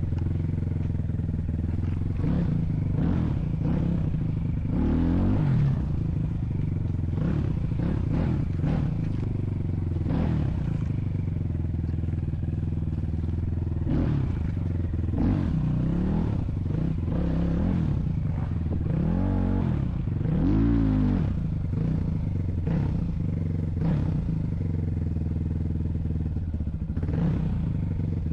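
A vehicle engine running without a break, its pitch rising and falling again and again as the throttle changes, with frequent knocks and rattles from the vehicle over rough ground.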